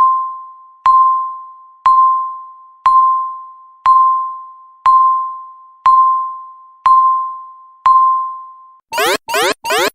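Countdown timer beeps: a single electronic tone once a second, each fading quickly, nine in all. Near the end, as the count reaches zero, a loud electronic alarm starts: fast rising sweeps pulsing about twice a second, signalling that the time is up.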